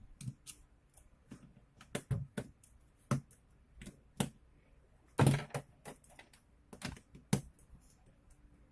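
Irregular clicks and knocks of hard plastic and metal parts being handled while a Makita 6205D cordless drill is taken apart, with one louder knock about five seconds in.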